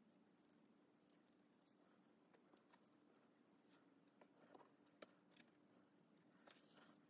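Near silence: faint rustles and light taps of 1949 comic book pages being handled and smoothed flat, with one sharper tick about five seconds in.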